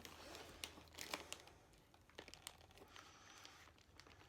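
Faint crinkling and rustling of packaging being handled, with a few light ticks scattered through the first half.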